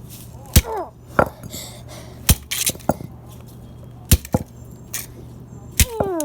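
Hard, sharp knocks on a plastic Nerf gun being smashed apart, about six irregular strikes spaced roughly half a second to a second and a half apart.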